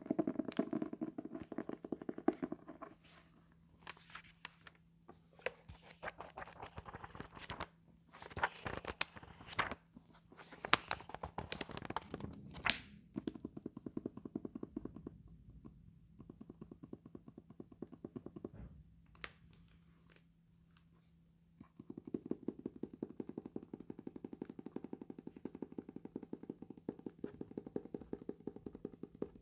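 Teeth of a comb drawn over calendar paper, making a fast run of fine clicks. Louder sharp scrapes and taps come in the middle.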